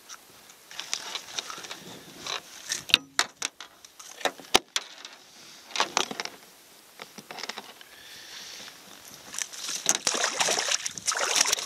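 Sharp knocks and clicks against a canoe hull while gear or a fish is handled, with bursts of water splashing, the longest and loudest near the end.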